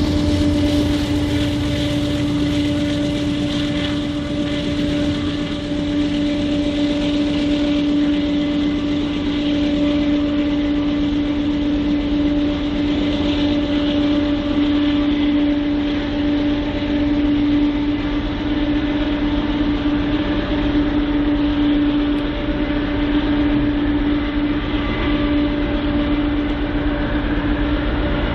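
Oil train of tank cars moving on the rails, with the steady drone of BNSF GE wide-cab diesel locomotives and the rumble of the cars.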